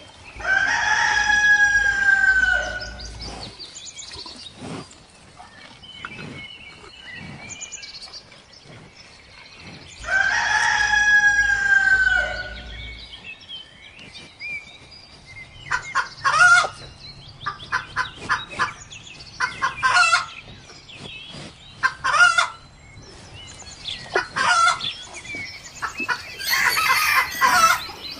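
Rooster crowing twice, about ten seconds apart, each crow a long call of roughly two and a half seconds. Then a string of short, sharp clucking calls about every second or two, and a louder, noisier flurry of calls near the end.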